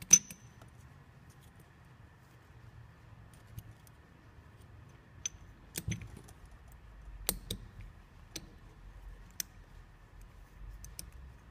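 A metal snap retaining ring clinking against a metal flow-meter measuring tube and housing as it is slid down and fitted into place. There is one sharp click with a brief ring just after the start, then scattered lighter clicks.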